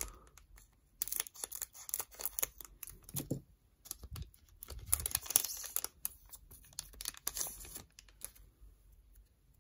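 Foil wrapper of a Yu-Gi-Oh! trading card booster pack being torn open by hand, with bursts of crinkling and tearing between about one and eight seconds in.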